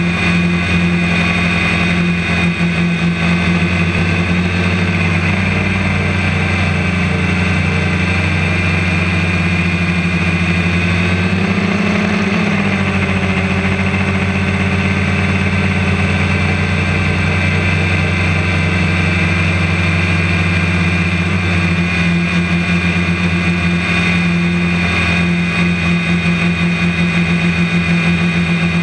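DJI Phantom quadcopter's electric motors and propellers whirring steadily, heard up close from the camera mounted on the drone. The pitch wavers briefly about twelve seconds in as the motors change speed.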